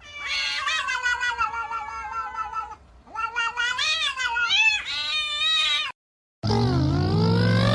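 A cat yowling: a long, wavering meow of nearly three seconds, then a second run of rising and falling yowls that cuts off suddenly about six seconds in. After a short break, a different steady sound with sliding tones begins near the end.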